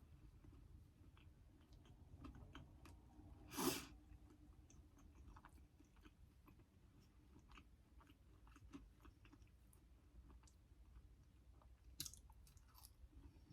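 A person chewing food, with faint soft mouth clicks throughout and two louder short bites or crunches, about four seconds in and near the end.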